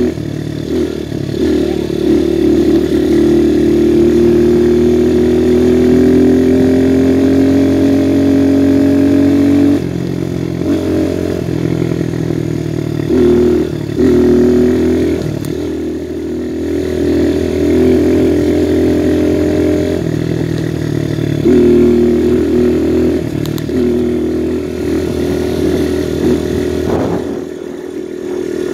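Viper 150cc dirt bike's single-cylinder engine running under way. Its pitch climbs slowly over the first ten seconds as the bike accelerates. After that the throttle is eased and reopened several times, with steady stretches between.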